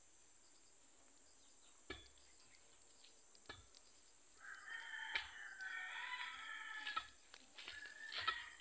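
A rooster crowing: one long crow of about two and a half seconds starting near the middle, then a shorter call near the end. A few sharp knocks sound about a second and a half apart.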